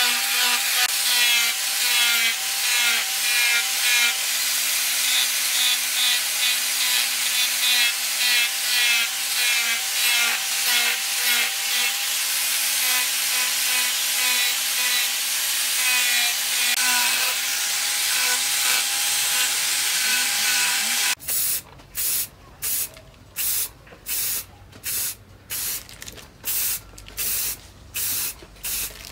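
Angle grinder with a sanding disc running against the steel of a knife blade forged from a disc brake: a steady motor whine over a grinding hiss. About 21 seconds in it cuts to an aerosol spray can firing short hissing bursts, roughly two a second.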